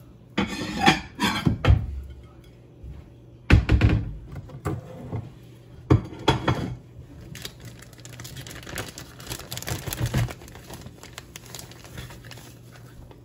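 Plates clattering and knocking as they are taken out and set down on a counter, the heaviest knock a few seconds in. This is followed by a plastic bag crinkling as fish is handled in its fish-fry coating.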